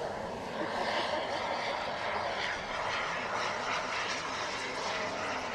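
Electric ducted-fan model jet flying at a distance: the impeller gives a steady rushing whine, with a louder pass dying away just at the start.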